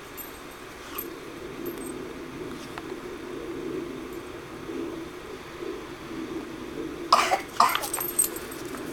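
Three short, sharp bursts of a person's voice about half a second apart near the end, the loudest sounds here, over a low steady background.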